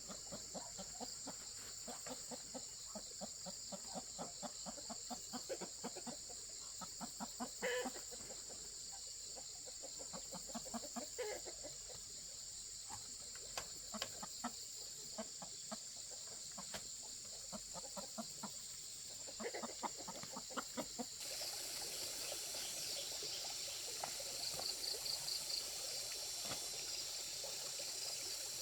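Chickens clucking in quick runs of short calls over a steady high insect drone. About two-thirds of the way through, the sound changes to running water.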